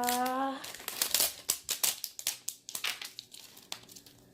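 Plastic wrapping of an L.O.L. Surprise ball crinkling and tearing as it is peeled open by hand: quick irregular crackles that die down near the end.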